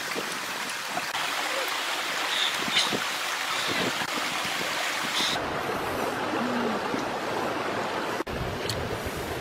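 Steady rushing of running water from a nearby stream, an even hiss with a few faint chirps over it.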